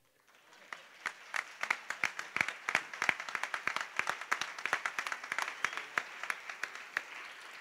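People applauding: a crowd of hand claps that starts about half a second in and thins out near the end.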